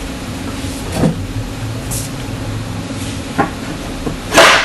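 Knocks of 3/4-inch plywood crate panels and spring steel clips being fitted together: a light knock about a second in, another about three and a half seconds in, and a loud, sharper knock near the end, over a steady low hum.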